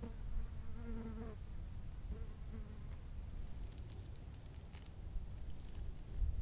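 A flying insect buzzing past close by, once for over a second and again briefly about two seconds in, over a low rumble. Faint crackles of dry leaf litter follow as rabbit fur is picked off the ground.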